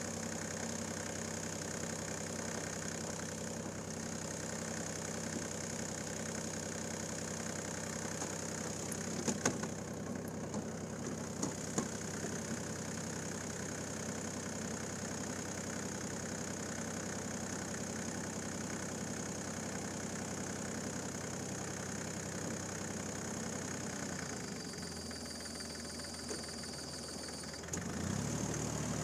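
Bombardier MPV-20 tractor's three-cylinder diesel engine running steadily, with a few sharp knocks about nine to twelve seconds in. It is a little quieter for a few seconds near the end, then grows louder.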